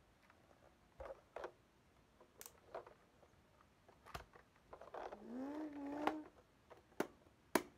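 Scattered light clicks and taps from a plastic toy truck and its cardboard box being handled, with a brief wavering hum about five seconds in.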